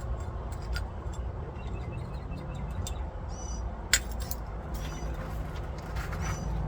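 Light metallic clinks and taps, with one sharp click about four seconds in, over a steady low rumble.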